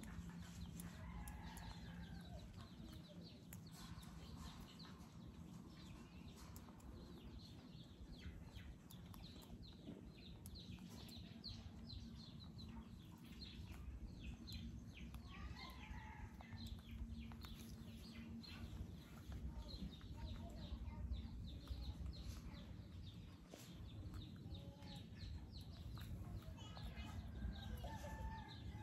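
Chickens clucking, with many short high chirps, over a low steady hum. Faint scratching and rustling of a macaque's fingers working through a person's hair as it grooms him.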